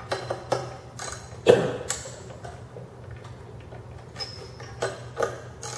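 A 5 mm hex wrench working the cylinder bolts of a Wacker Neuson WM80 engine, metal on metal: scattered sharp clicks, the loudest about one and a half seconds in, and a brief high ring a little after four seconds.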